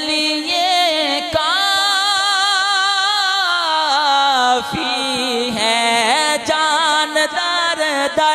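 A man's solo voice singing a naat into a microphone, drawing out long ornamented notes that waver and bend in pitch, with a short break a little past the middle.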